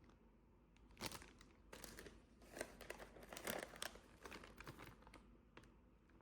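Faint, irregular crinkling of plastic packaging: a string of short rustles over a few seconds.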